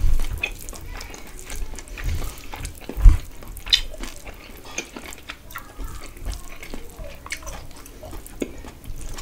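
Close-miked wet squelching and small irregular clicks of a bare hand kneading and mixing rice with curry on a steel plate. A dull thump about three seconds in is the loudest sound.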